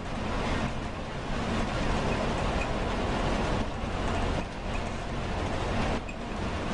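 Steady running noise of a moving vehicle: a continuous low rumble with an even hiss over it.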